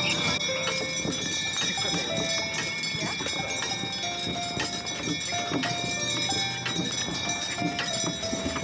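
A team of Belgian draft horses pulling a wheeled wagon: irregular hoof steps with the harness and trace chains jingling and the wagon rattling along.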